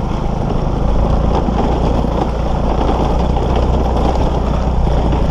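Motor scooter engine running steadily while being ridden off-road.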